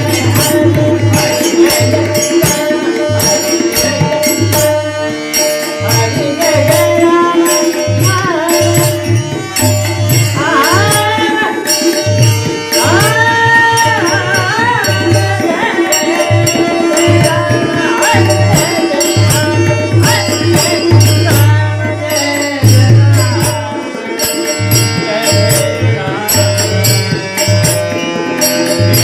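Marathi devotional bhajan: tabla playing a steady rhythm under sustained held notes, with a male voice singing long, ornamented phrases from about ten seconds in.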